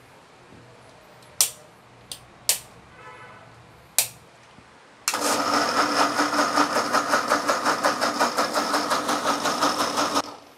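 A few sharp knocks as the steel mixer-grinder jar and its plastic lid are handled and set on the base. Then the mixer grinder's motor runs for about five seconds, with a rapid pulsing, blending palmyra fruit (ice apple) with tender coconut water, and cuts off suddenly.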